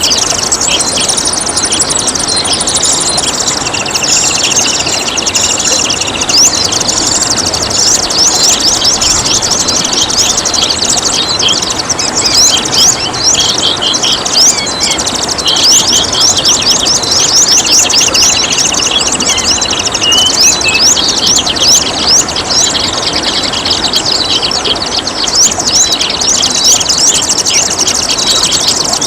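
Songbirds chirping rapidly and without pause over babbling water, with a few short trills among the chirps.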